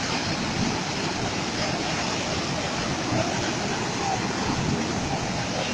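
Fast-flowing floodwater rushing and churning past in a steady torrent.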